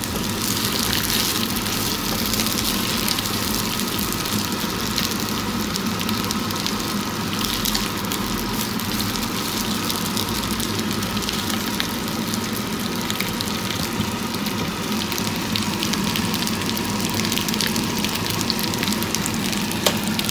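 Asparagus spears sautéing in a little oil in a frying pan: a steady sizzle.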